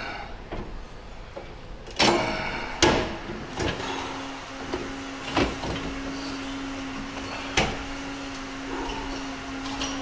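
Metal clanks and knocks from a leg extension machine's weight stack and frame: two loud ringing clanks about two and three seconds in, then a few lighter knocks. A steady low hum starts about four seconds in.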